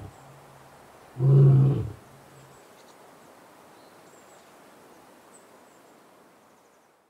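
Lion roaring: one loud, deep call about a second in, the tail of an earlier call just fading at the start, then only a faint hiss.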